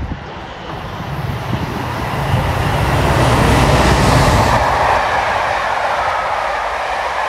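DB Cargo Class 67 diesel-electric locomotive (two-stroke V12 diesel engine) passing close by with a train of coaches. Its engine noise builds and is loudest about three to four seconds in as it goes past, then gives way to the steady wheel-on-rail noise of the coaches running by.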